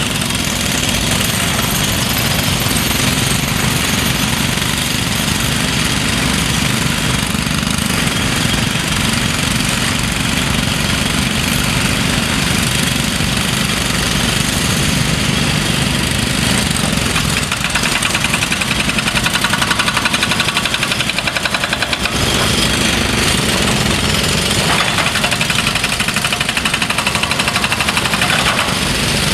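Heavy construction machinery: an excavator's diesel engine running hard, with a fast, rapid mechanical hammering over it, in the manner of a jackhammer or hydraulic breaker. The sound changes abruptly about 22 seconds in.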